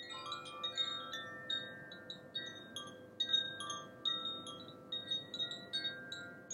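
Wind chimes ringing: a dense run of quick high strikes that start suddenly, each ringing on and overlapping over longer held tones.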